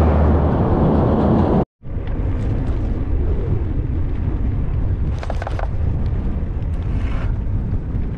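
A road train of side-tipper trailers passing close by, a steady low engine drone under loud tyre roar, cut off suddenly about a second and a half in. After that, wind rushing over the microphone of a moving bicycle, with a low rumble of tyres on the road.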